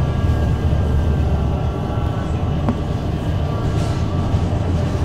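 Golden Dragon XML6105JHEVG5C6 plug-in hybrid city bus under way, heard from inside the cabin: a steady low drone from its Shangchai SC7H215Q5 6.4-litre diesel engine, with a faint high whine over it.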